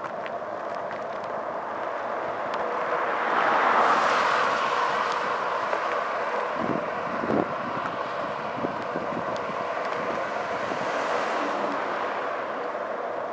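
A car overtaking close by: its tyre and engine noise swells to a peak about four seconds in, then fades as it pulls ahead. Steady wind noise on the microphone of the moving bike runs underneath.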